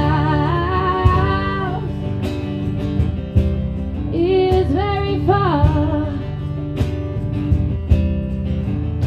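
Live pop-country music: a female singer holds long sung notes in two phrases, one at the start and one about four seconds in, over guitar and a steady drum beat.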